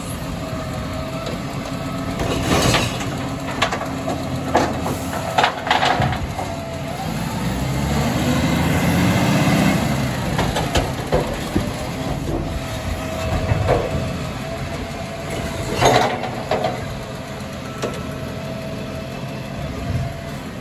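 Side-loading garbage truck's diesel engine running, with sharp metallic knocks and clatter from emptying a wheelie bin in the first few seconds and another bang later on. The engine swells up around eight seconds in, and the truck moves off.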